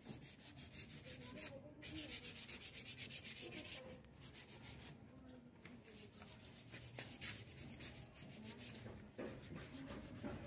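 Hand sanding of bare wood with sandpaper, in quick, even back-and-forth strokes that pause briefly a couple of times and grow softer through the middle.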